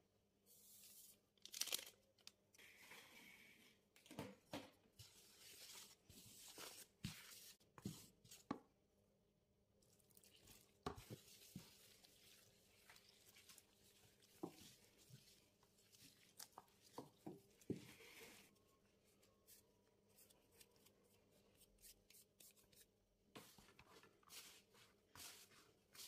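Faint kitchen handling sounds: a sachet of instant dry yeast torn open, then scattered scrapes and light knocks of a spatula stirring water into flour in a metal bowl.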